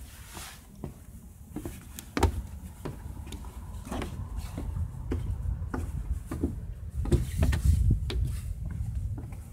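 Footsteps on the wooden boards and stairs of a lookout tower: a string of irregular knocks and thuds, heaviest about two seconds in and again near the end, over a low rumble of wind on the microphone.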